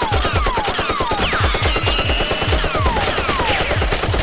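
Rapid automatic gunfire sound effects, many shots in quick succession, with falling whizzing tones laid over them.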